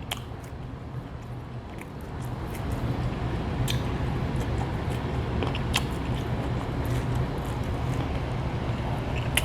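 Chewing and small mouth clicks from eating shrimp, over a steady low rumble that comes up about two seconds in.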